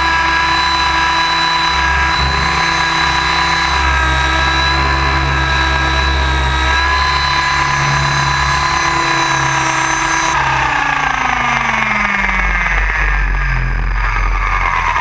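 Onboard sound of an electric Align T-Rex 700 RC helicopter in aerobatic flight: the motor and gear whine holds a steady pitch over rotor and wind rumble. About ten seconds in, the whine starts falling steadily in pitch as the motor slows.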